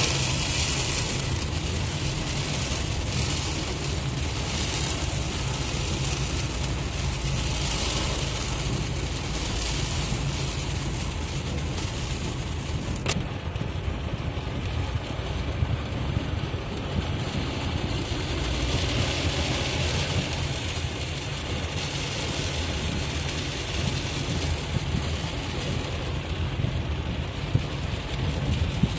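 Heard from inside a car cabin, heavy rain on the car and windscreen hisses over the steady low rumble of tyres and engine on the road, swelling roughly every two seconds. About halfway through, after a sharp click, the rain hiss drops away, leaving mostly the low road and engine rumble of the moving car.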